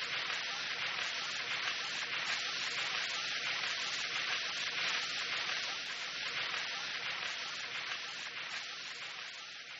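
Radio static: a steady hiss with a faint hum beneath it, fading out near the end.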